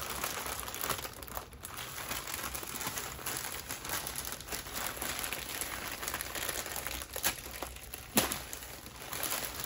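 Paper or plastic packaging wrap crinkling and crumpling as hands pick and pull at it, trying to tear a hole in it, with a sharper crackle about eight seconds in.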